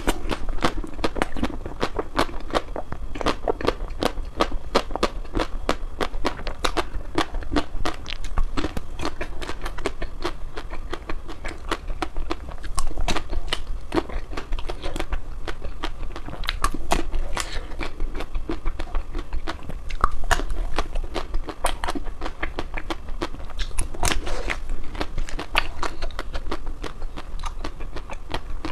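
Someone biting into and chewing ice cream: a dense run of crisp crunches and crackles, several a second. A steady low hum sits underneath.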